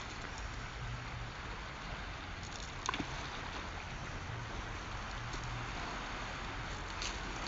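Sea ambience: a steady wash of water with a low rumble, and one short sharp click about three seconds in.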